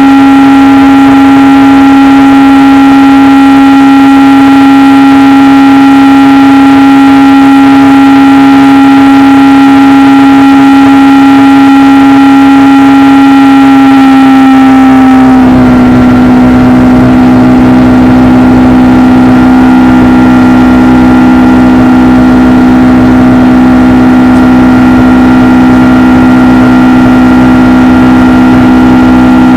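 Boeing 757-200's twin turbofan engines running loud and steady, a whine of several steady tones over a rushing hiss. About halfway through, the tones dip slightly in pitch, the hiss drops away and a low rumble comes up.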